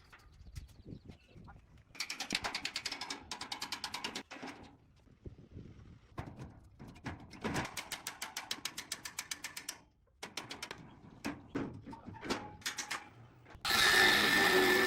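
Ratchet clicking in two runs of rapid, even clicks, with scattered knocks of tool on metal between them. Near the end a loud, steady rush of noise starts abruptly.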